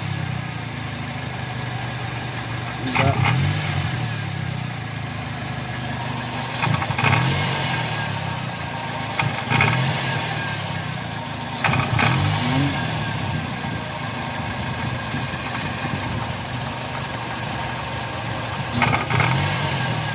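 Toyota Corolla engine idling with a steady exhaust drone and briefly rising in speed about five times. The owner suspects an exhaust leak.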